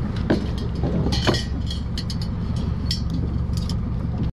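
An engine running steadily with a low hum, with a few light clinks and ticks over it, the sharpest around a second in.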